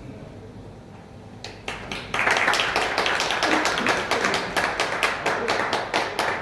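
Small audience applauding with distinct individual claps, starting about a second and a half in and building up around two seconds in.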